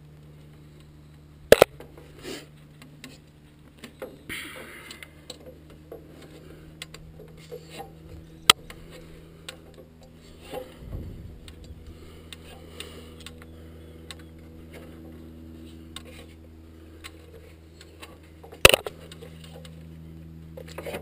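Knocks and clanks of someone climbing down an aluminium-runged fibreglass extension ladder, with hands and boots striking the rungs and rails. Three sharp loud clacks stand out: one about a second and a half in, one near the middle, and one near the end. A steady low hum runs underneath.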